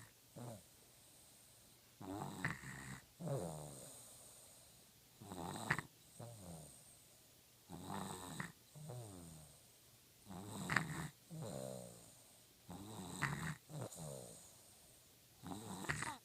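Slow, steady snoring from a sick sleeper, about six breaths: each a rough snore on the in-breath followed by a whistling out-breath that falls in pitch.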